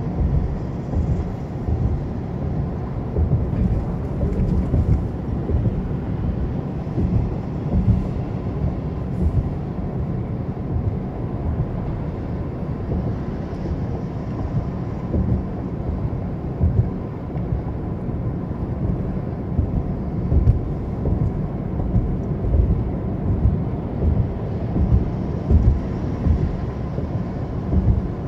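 Low, steady rumble of a car driving at road speed: tyre and road noise with the engine beneath, heard from inside the cabin.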